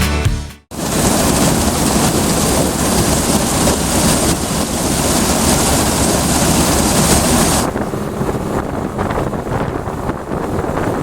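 Music cuts off about half a second in, giving way to a steady rush of wind buffeting the microphone over farm harvesting machinery running. The hiss eases about eight seconds in.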